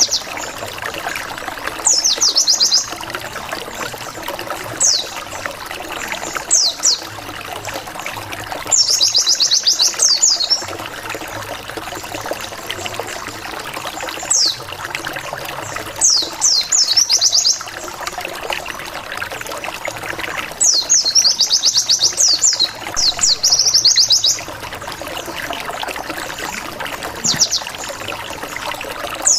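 White-eye (pleci) singing: repeated bursts of fast, high, sweeping 'wit wit wit' notes, several notes to a burst, every few seconds, over a steady hiss. This is the excited, aggressive song used as a lure to set rival white-eyes answering.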